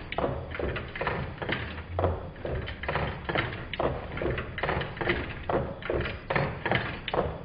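Meccano twin-cylinder Stirling engine running, its displacers landing at each end of their travel in a steady rhythm of knocks, a few a second.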